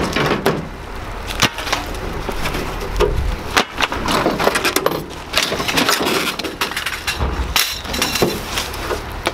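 Light scrap metal clanking and clattering as pieces are dragged off a pickup's tailgate and thrown onto a scrap pile: a string of sharp, irregular metal impacts.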